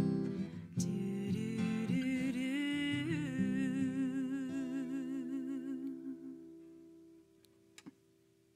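Acoustic guitar playing the closing chords of a song, with a wordless held vocal note with vibrato over it. The last chord then rings out and fades away about seven seconds in.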